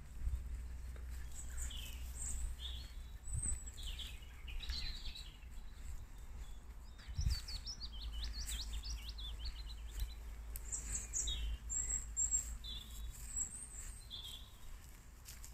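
Wild birds singing: scattered chirps and short whistles from several birds, with a fast run of repeated notes about halfway through. A steady low rumble sits underneath.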